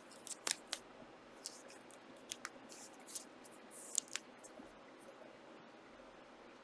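Trading cards being handled: faint, scattered short swishes and clicks as cards slide against one another and are flicked through, with the clearest ones about half a second in and around four seconds.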